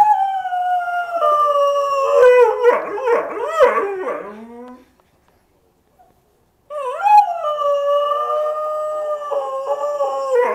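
Dog howling twice. The first howl slides down in pitch and breaks into wavering yelps before trailing off. After a pause of about two seconds the second howl starts, holds fairly steady, and carries on past the end.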